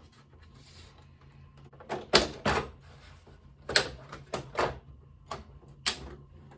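Plastic back cover of a Dell OptiPlex 9030 all-in-one computer being worked off: a series of sharp clicks and knocks as its clips let go, the loudest about two seconds in.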